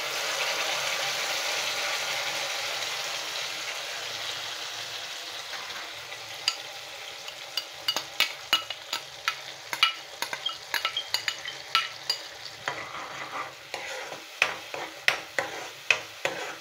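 Tomato, onion and cashew purée hitting hot oil in a kadhai and sizzling loudly, the hiss easing off over about six seconds. After that the thick sauce bubbles and is stirred with a spoon, giving a run of sharp clicks and pops.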